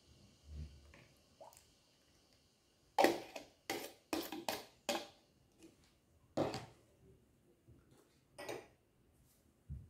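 Thick kefir poured from a plastic measuring jug into a plastic bowl, then scraped out of the jug with a metal spoon: a quick run of short wet plops and scrapes about three seconds in, then two more single ones spaced a couple of seconds apart.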